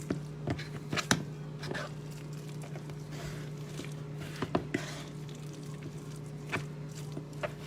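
Dark chocolate chips being added slowly to a mixing bowl, landing as a scattering of light, irregular clicks and taps, with a steady low hum underneath.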